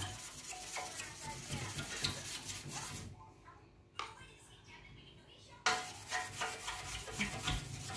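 Toothbrush with toothpaste scrubbed rapidly back and forth on a glass cabinet door, a quick rasping rub. The rasp is the sign of old mould still clinging to the glass, and it fades as the mould comes off. The scrubbing stops for a couple of seconds about three seconds in, with a single click near four seconds, then starts again.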